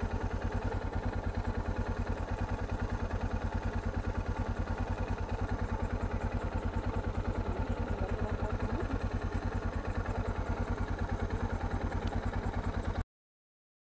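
Yamaha XT 660Z Ténéré's single-cylinder engine running steadily at an even, unchanging beat; the sound cuts off suddenly near the end.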